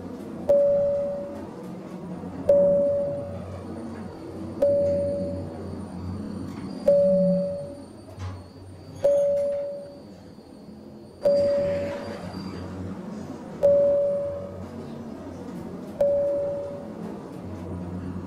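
A single-pitch electronic ping repeating about every two seconds, each one ringing briefly and fading, over a low steady hum. A short rushing noise comes just after the middle.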